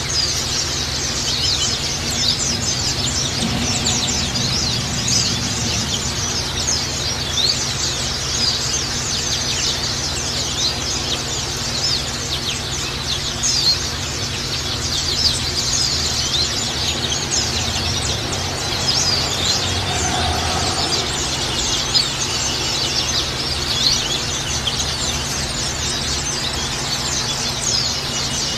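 White-eye (pleci) birds twittering: a steady stream of rapid, high, thin chirps run together, over a low steady hum.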